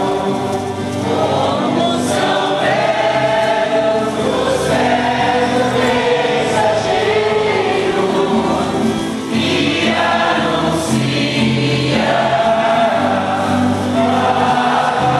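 A group singing a Christian song together in chorus over instrumental accompaniment, loud and continuous.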